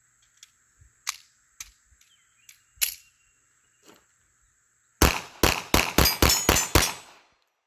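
A few light clicks of the Taurus Spectrum .380 ACP micro pistol being handled, then about five seconds in a rapid string of seven shots in about two seconds. The pistol fires flat-nose rounds and cycles through the magazine without jamming.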